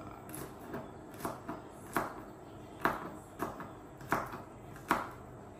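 Knife chopping vegetables, one sharp chop at a time, about one cut a second and unevenly paced.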